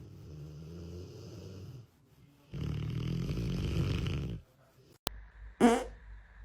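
A pet snoring: two long, low, rasping snores about two seconds apart. About five seconds in the sound cuts off abruptly, followed by a brief loud cry-like sound and a second, shorter one.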